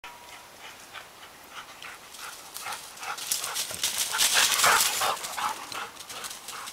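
Springer spaniel panting quickly as it runs, with its paws hitting the ground; it grows loudest about four to five seconds in as the dog comes close, then fades.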